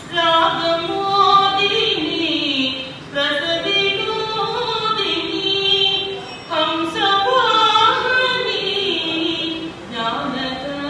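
A woman singing unaccompanied into a microphone, in long held, sliding phrases broken by short pauses about three, six and a half and ten seconds in.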